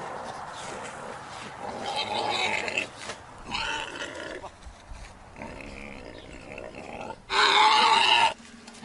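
Large domestic pig grunting and squealing in several short calls, the loudest near the end.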